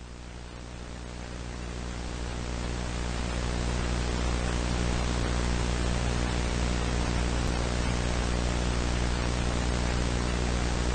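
Static hiss with a low steady hum beneath it. It swells up over the first few seconds and then holds steady.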